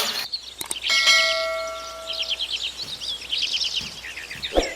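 Small birds chirping in quick, repeated high peeps. About a second in, a single bell-like tone rings and fades out over about a second and a half.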